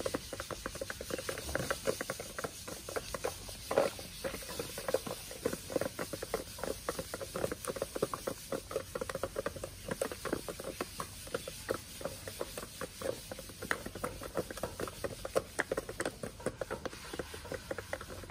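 Chickens pecking feed, a fast, irregular patter of beak taps on the ground and grain.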